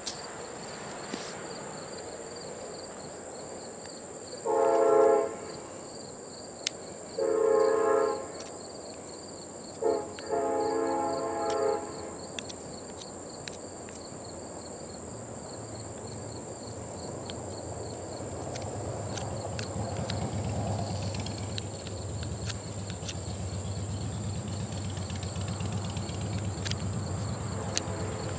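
Train horn sounding the grade-crossing signal, two long blasts, a short one and a final long one, about five to twelve seconds in, over steady chirping of insects. A low rumble builds through the second half, with light clicks and scrapes of a knife whittling a wooden stick.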